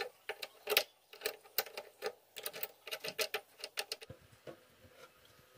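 Irregular clicks and knocks of hands and tools working at an electric motor mounted in a wooden machine frame, several a second, thinning out about four seconds in.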